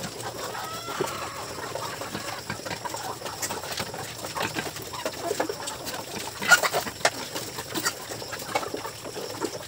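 Chickens clucking close by, over the irregular smacking and clicking of piglets eating from a feed dish, with one sharper click about six and a half seconds in.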